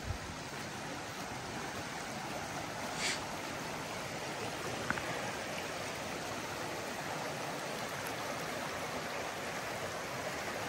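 Steady rushing of a stream flowing nearby, with one faint short sound about three seconds in.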